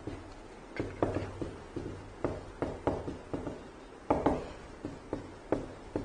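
Hand writing on a board: an irregular string of short taps and scraping strokes, a few every second, over a faint low hum.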